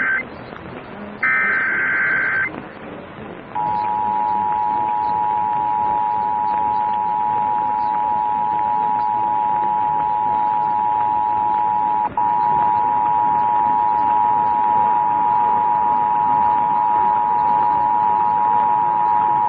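Emergency Alert System Required Monthly Test tones: the tail of one SAME digital header burst and then a second full burst of buzzing data tones. About three and a half seconds in, the EAS two-tone attention signal starts, a steady dual tone near 1 kHz that holds for about sixteen seconds, with a brief dropout partway through.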